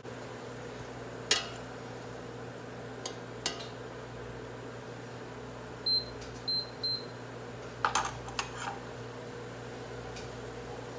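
Electric touch-control cooktop humming steadily as it heats a pot. It gives three short high beeps about six seconds in as its controls are pressed. A few sharp clicks and knocks come from around the pot, the loudest near the start and two close together near eight seconds.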